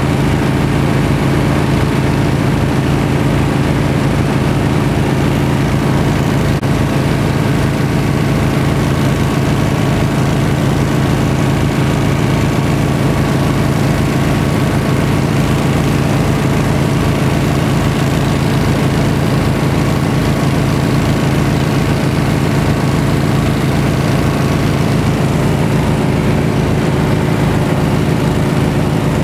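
An engine running steadily at a constant speed, with an even low throb and no change in pitch.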